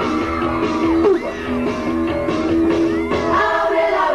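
Live rock song: a singer's voice over a band with a steady beat.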